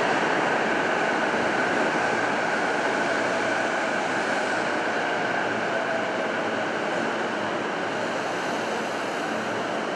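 Electric train moving along an underground station platform: a steady rushing rumble with a faint whine that sags a little in pitch, slowly getting quieter.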